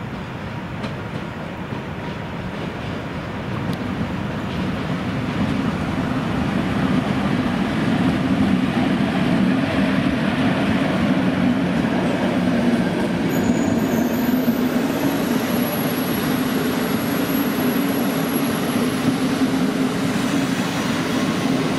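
PKP Intercity EP07 electric locomotive and its passenger coaches rolling past, the rumble of wheels on rails growing louder as it draws near and then holding steady as the coaches go by. A thin high squeal rides over it about halfway through.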